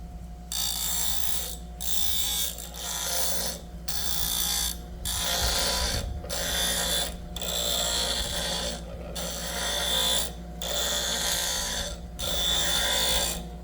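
Single-speed benchtop grinder running with a steady low motor hum, while a workpiece is held to the wheel in about ten short grinding passes, each about a second long and marked by a hissing rasp.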